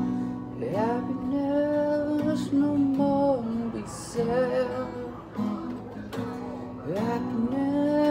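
Guitar being strummed and picked, with a man singing long wordless held notes that slide up into pitch and waver.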